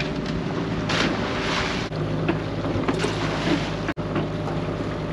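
Small fishing boat's engine idling with a steady low hum, with water rushing and splashing at the side from about a second in and a couple of light knocks of gear on the boat.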